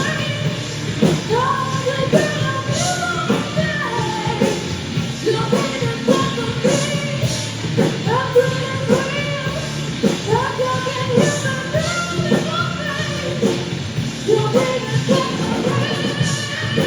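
Rock band playing, with a singer's voice sliding between notes over the band.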